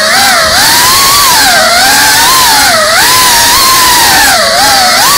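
Brushless motors and ducted propellers of a GEPRC Cinelog 35 cinewhoop FPV drone whining loud and close in flight. The pitch keeps rising and falling as the throttle changes.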